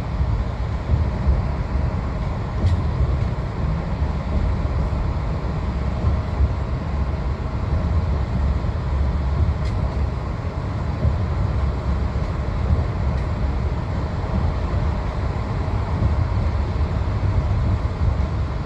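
Steady low rumble of a Greyhound intercity coach at highway speed, heard from inside the passenger cabin: engine drone mixed with tyre and road noise.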